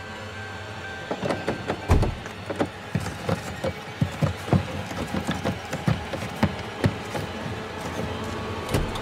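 A run of irregular sharp knocks and clicks, several a second, over a steady hum; the loudest knock comes about two seconds in.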